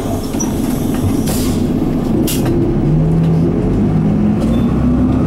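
Mitsubishi Fuso Aero Midi MK bus's 6M61 inline-six diesel engine running, heard from inside the cabin as the bus pulls away slowly, with the engine note rising gradually from about three seconds in. A single sharp click about two seconds in.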